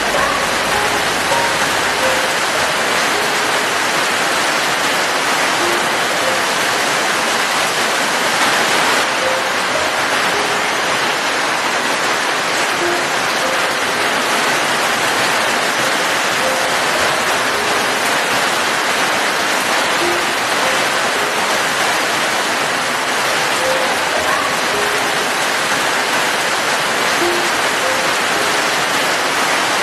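Steady rain falling, an even, unbroken hiss, with faint short pitched notes scattered through it.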